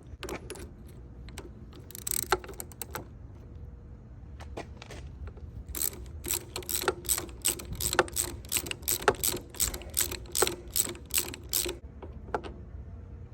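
Hand socket ratchet clicking in short runs of sharp metal clicks with a slight ring, working stuck handlebar riser studs loose. A few scattered clicks come early, and they grow thick and steady from about six seconds in until nearly the end.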